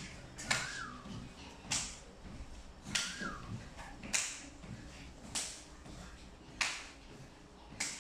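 Mini trampoline (rebounder) being bounced on: a sharp slapping snap about every 1.2 seconds as the mat and elastic cords take each landing, with a short squeak on a couple of them and soft low thuds between.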